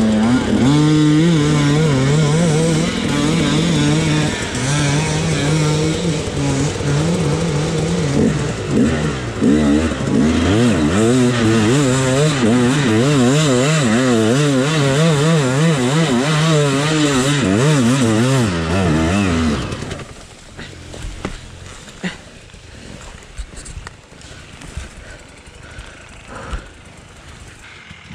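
Two-stroke enduro dirt bike engine revving hard, the revs rising and falling quickly as the throttle is worked. About two-thirds of the way through the engine sound drops away abruptly, leaving only faint knocks.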